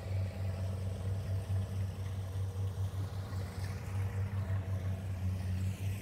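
Kubota combine harvester's diesel engine running steadily, a low even hum.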